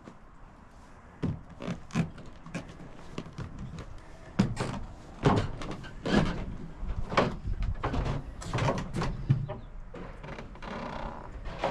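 Footsteps thudding and knocking on old wooden floorboards, an irregular run of heavy steps.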